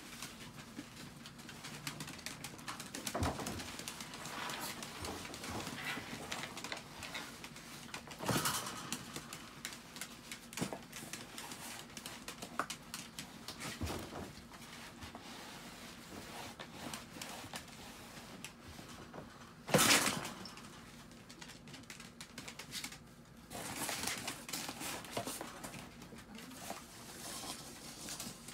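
Small dogs moving about a pen: claws scuffling on a plastic sheet and a plastic tray, and cardboard pieces rustling and knocking, with one sharp knock about 20 seconds in.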